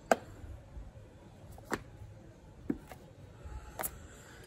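Four light, sharp taps about a second apart, the first the loudest, as objects are handled, over a low background hiss.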